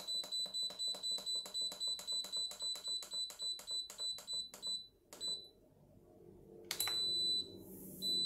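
Instant Pot electric pressure cooker's control panel beeping as its buttons are pressed to set the pressure-cooking time: a fast run of short high beeps, about five a second, stops after about five seconds. Then come a single beep, one longer beep and a last beep as the program starts, while a low hum rises.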